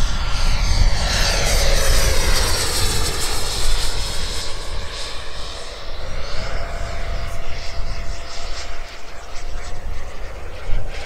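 Electric ducted fan of a Sebart mini Avanti S model jet (90 mm WeMoTec Midi Evo, HET 700-75-1400 motor) whining at high power as the jet makes a fast pass. The pitch falls sharply over the first two seconds as it goes by, then settles to a steadier, quieter whine as it flies away.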